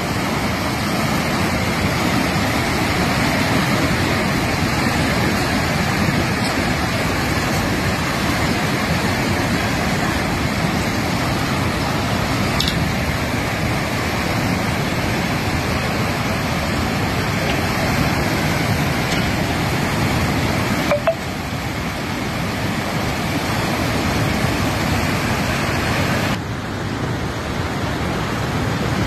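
Mountain river in spate, its silt-laden floodwater rushing past in a steady, loud roar. There is a short knock about 21 seconds in, and the level drops a little near the end.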